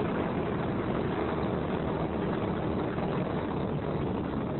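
Titan IV rocket climbing under its twin solid rocket motors: a steady, even rumble with no breaks.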